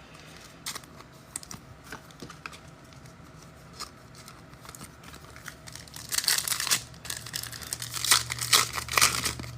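A trading-card pack's wrapper being torn open and crinkled, a dense crackling that starts about six seconds in, after a few light ticks of cards being handled.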